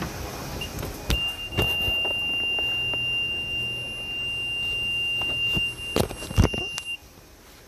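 A steady, high-pitched electronic alarm tone sounds without a break for about six seconds, starting about a second in and cutting off shortly before the end. Several sharp knocks and rubs are heard along with it.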